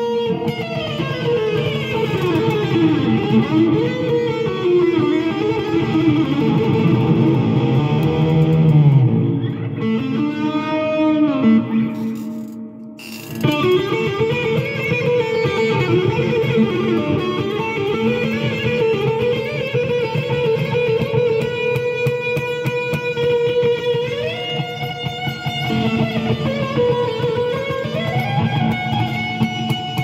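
Four-string bağlama played solo, an improvised melody of quick picked notes running up and down. The playing briefly drops away a little before halfway, then resumes.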